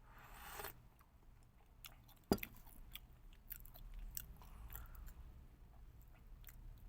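Close-up chewing of food, heard as small irregular clicks and mouth smacks. There is a short hiss near the start and one sharp knock a little over two seconds in.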